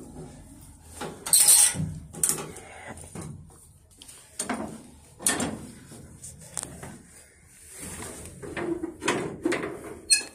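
Irregular metal clunks, clicks and scrapes of a stationary locomotive's cab controls being worked by hand: a lever moved and a red handwheel valve turned. The loudest knock comes about one and a half seconds in, and a quick run of clicks comes near the end.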